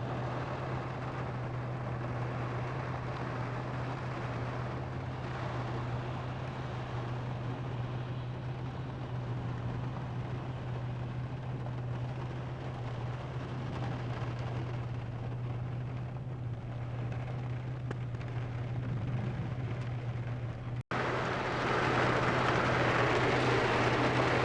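Rain falling on a car, heard from inside, over the engine's steady low idling hum. After an abrupt break near the end the rain is louder, really coming down.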